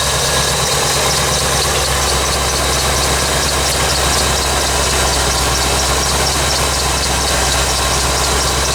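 1985 Corvette's 5.7-litre V8 idling steadily while still cold, with a light regular ticking over the engine note.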